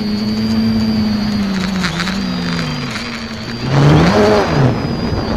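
X550AIOP quadcopter's electric motors and propellers droning, heard from a keychain camera mounted on the frame, with a thin high whine above the hum. The pitch sags, then about four seconds in the motors speed up sharply with a louder rush of noise before settling.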